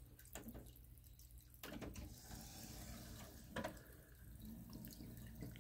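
Technics SL-PD667 five-disc rotary CD changer working its buttons, tray and carousel: a few faint mechanical clicks over a steady low hum. The loudest click comes about two-thirds of the way through.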